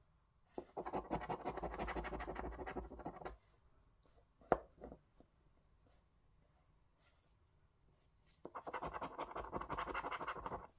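A coin scratching the coating off a lottery scratchcard in two bursts of rapid strokes, each about three seconds long, with a single sharp click between them.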